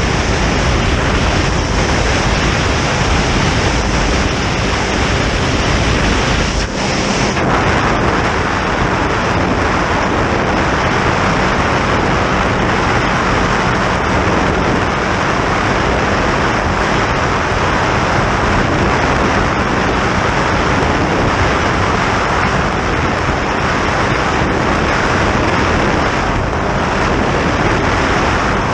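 Wind rushing over the microphone on a boat running at speed, about 60, with a steady engine drone and water noise under it.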